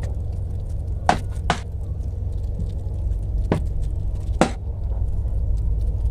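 Water falling in thin streams onto the soil and leaves of a freshly transplanted Chinese elm bonsai in a perforated plastic basket: a generous watering to flush the dust out of the new substrate. Four sharp clicks stand out, over a steady low rumble.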